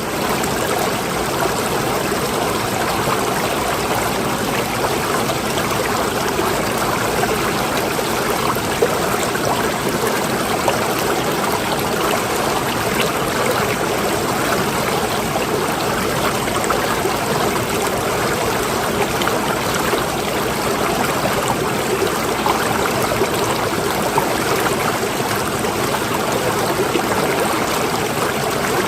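Water running steadily, a continuous even rush with no breaks.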